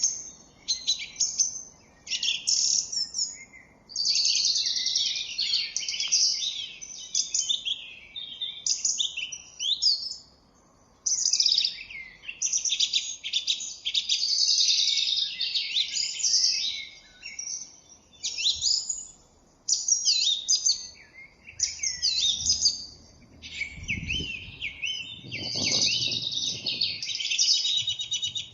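Several small birds chirping and chattering in quick, overlapping bursts of high calls, with brief pauses between phrases, as they gather at a fig tree. A few low rustles near the end.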